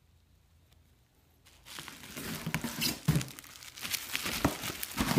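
Plastic bubble wrap crinkling and rustling as it is handled and pulled out of a box, starting about a second and a half in, with many sharp crackles.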